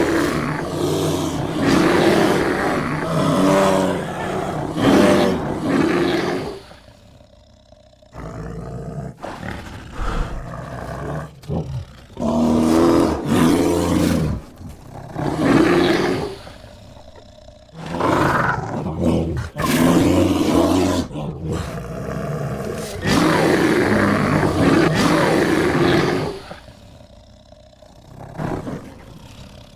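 Black bear vocalizing in a series of loud, rough, pitched calls lasting a few seconds each, with quieter stretches between them, the longest lull about seven seconds in and another near the end.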